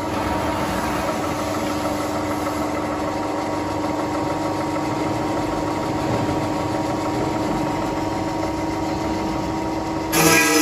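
Automatic circular cold saw running steadily with a constant hum as its HSS disc blade spins and feeds down toward a clamped bundle of square steel tubes. Near the end the sound gets suddenly louder and brighter as the blade starts cutting into the tubes.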